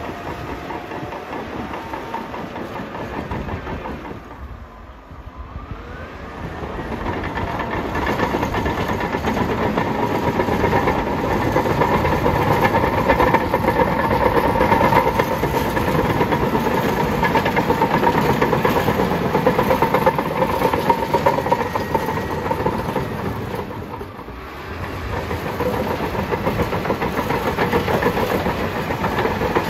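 Bulldozer working up close: its diesel engine running and its steel tracks rattling, easing off briefly about five seconds in and again about twenty-four seconds in.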